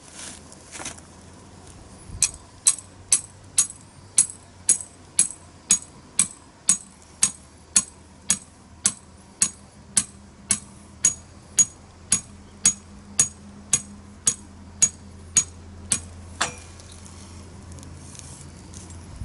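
A steady run of sharp, ringing taps, about two a second, starting about two seconds in and stopping a few seconds before the end, over a low steady hum.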